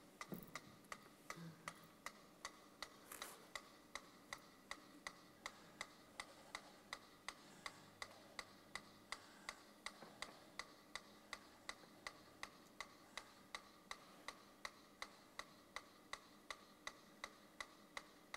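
Faint, steady ticking at an even pace of about two and a half ticks a second.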